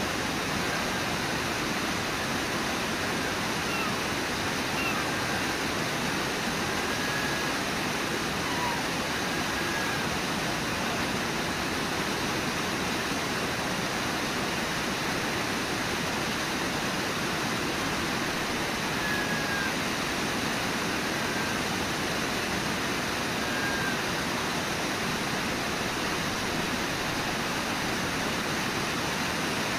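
Brooks Falls: river water rushing over the falls in a steady, unbroken roar.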